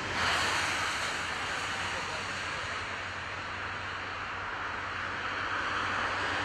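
Heavy diesel trucks and machinery running steadily: a constant low engine hum under a broad rushing noise.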